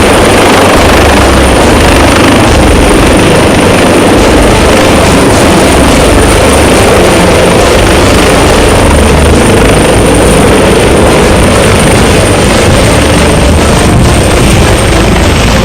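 Aircraft engine noise, loud and continuous throughout, with a heavy low rumble.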